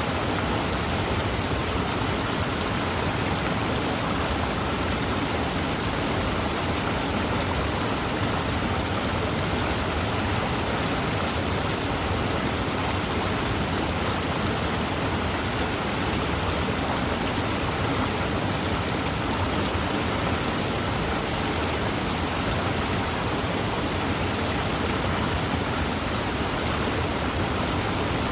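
Fast-moving river rushing steadily over its bed: a dense, even water noise with no breaks or changes.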